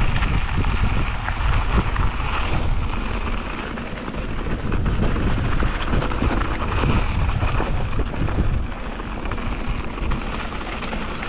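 Wind buffeting an action camera's microphone while a mountain bike rolls fast down a dirt trail, the tyres rumbling, with a few sharp clicks and rattles from the bike over bumps.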